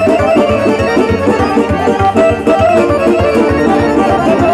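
Live amplified folk dance music: an accordion plays a fast melody over electronic keyboards and a steady bass beat.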